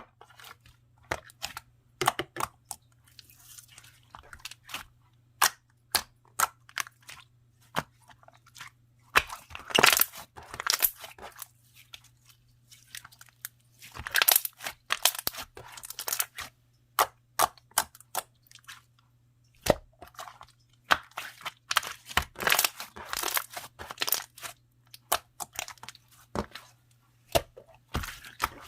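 Gold marbling slime being squeezed and worked by hand, giving sharp sticky clicks and air-bubble pops, with denser runs of crackling several times.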